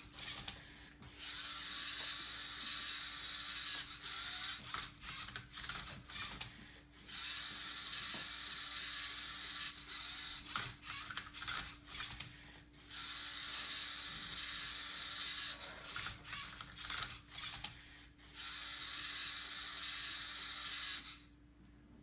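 LEGO Mindstorms EV3 robot's motors whirring in runs of a few seconds with short pauses and clicks between them, as the cube-solving robot turns the Rubik's Cube and swings its colour sensor over it to scan the sides. The motors go quiet about a second before the end.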